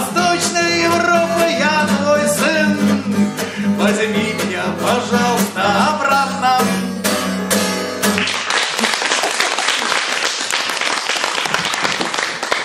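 Acoustic guitar playing the close of a song with a man's singing voice over it; about eight seconds in the music stops and audience applause takes over.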